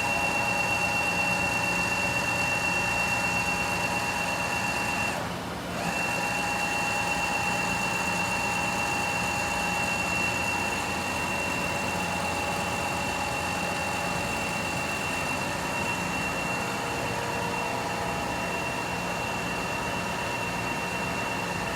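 Froriep CNC vertical boring mill running with a steady, high-pitched electric-drive whine over a lower hum; the whine drops out briefly about five seconds in, then comes back and holds steady.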